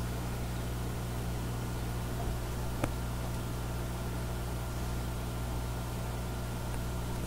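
Steady low hum and hiss of an aquarium filter running, with a single sharp click about three seconds in.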